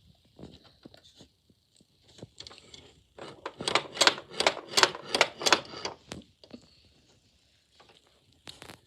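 Small plastic toy figures and playset pieces being handled: light taps and scrapes, with a run of about seven sharp clicks, roughly three a second, in the middle.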